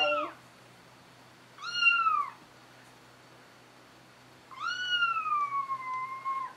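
High-pitched kitten meows: a short falling call about two seconds in, then a long call from about halfway that rises slightly, falls and is held level before it cuts off.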